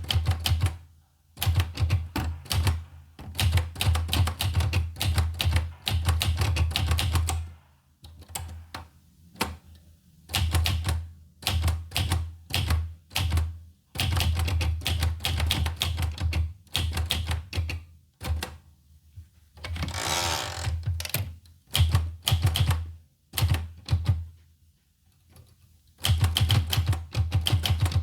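Olivetti Lettera 25 manual portable typewriter being typed on: runs of rapid keystrokes, each a sharp clack over a dull thud from the machine, broken by brief pauses. About two-thirds of the way in comes one longer rasping slide lasting a second or so.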